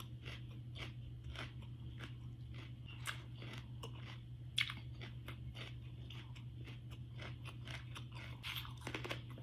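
Mouthful of raw kohlrabi being chewed: irregular crisp crunches, one louder crunch about four and a half seconds in, over a steady low hum.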